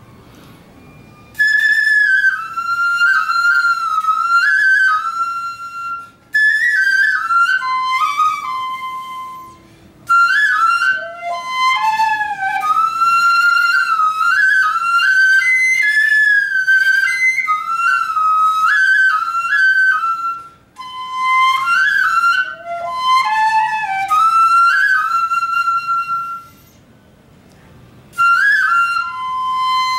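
Vietnamese bamboo transverse flute (sáo trúc) playing an unaccompanied southern tài tử melody, with notes that slide and bend into one another. It starts about a second and a half in, breaks briefly for breath a few times, and pauses for longer near the end before going on.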